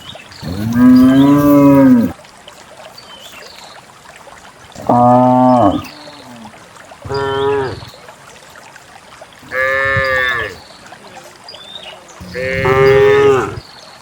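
Cattle mooing: five separate moos with pauses between them. The first and last calls are the longest, over a second each. Some calls are pitched higher than others.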